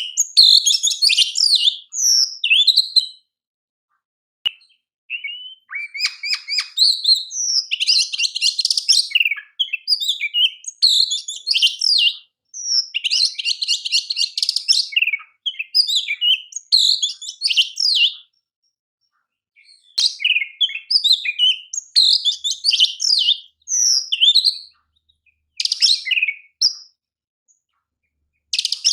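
Oriental magpie-robin (kacer) singing: varied high whistled and chirped phrases, twice broken by a fast buzzy rattle, with short pauses between bouts.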